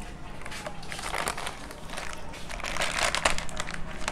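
Eating sounds: crab shells being cracked and crunched, a run of irregular crisp crackles with the loudest cracks about three seconds in.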